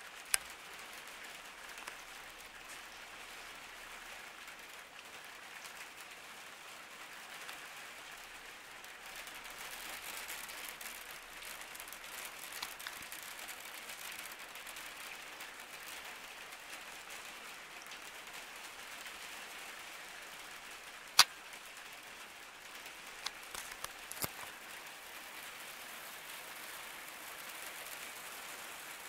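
Light rain starting to fall, a soft steady patter of drops on a skylight. A single sharp tick stands out about two-thirds through, with a few smaller ticks soon after.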